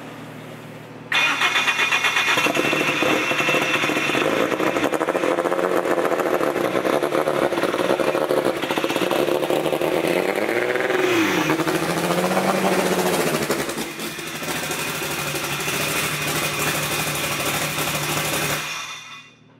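Turbocharged Honda Civic drag car driving up to and past close by. The engine comes in loud and suddenly about a second in and runs steadily, with its pitch dipping and recovering as the car passes. It cuts off sharply near the end.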